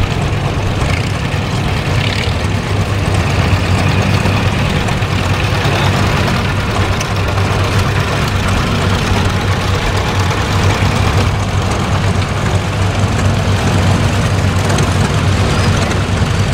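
Vintage farm tractor engines running slowly in a steady low drone, the tractors creeping forward at low throttle in a slow race.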